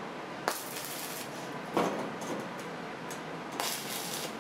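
Stick (arc) welding crackle in two short bursts, one about half a second in and one near the end, as square steel tube pieces are tack-welded to a steel plate. A single metal knock falls between them.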